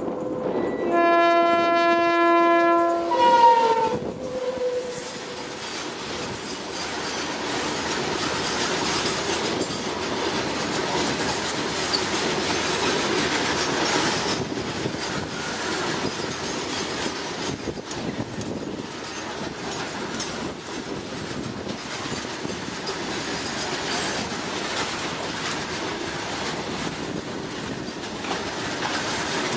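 Indian Railways electric freight locomotive sounding its air horn for about two seconds, one steady chord whose pitch falls as it dies away. A long rake of covered goods wagons then rolls past close by, with steady wheel rumble and clickety-clack.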